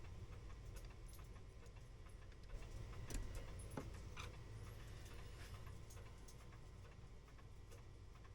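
Faint clockwork ticking and small metallic clicks over a low hum, with a few sharper clicks about three to four seconds in.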